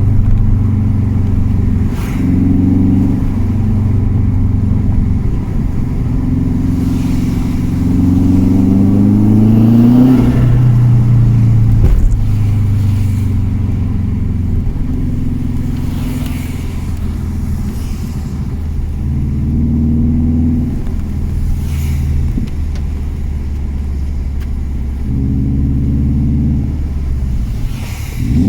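Subaru WRX's turbocharged flat-four engine building revs and letting off several times, with turbo flutter (compressor surge) on the lift-offs because the blow-off valve is blocked off with a plate cut from a soda can.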